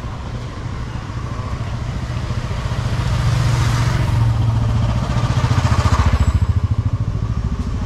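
A motor vehicle passing close by on the road: its engine hum and tyre hiss swell, peak over a few seconds with a pulsing low throb, then ease off.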